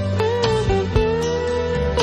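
Background instrumental music: a sustained lead melody that slides into its notes over plucked accompaniment and steady bass notes.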